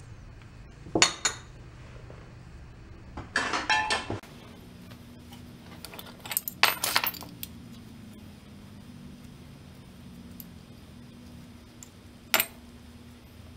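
Small metal carburetor parts and an open-end wrench clinking and rattling as they are handled and set down on the workbench: one clink about a second in, a rattle of clinks near four seconds, another cluster near seven seconds and a single clink near the end. A steady low hum runs underneath.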